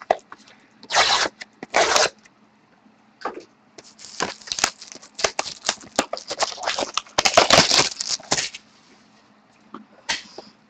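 Plastic shrink wrap being torn and crinkled off a box of trading cards: two short rips about a second apart, then several seconds of dense crackling and crumpling, and one more short rip near the end.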